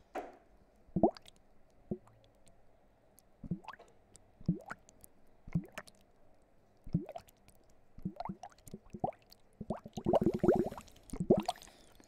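Bubbles blown into water, plopping one or two at a time, each a short blip that rises in pitch. Near the end comes a denser burst of bubbling lasting about a second and a half.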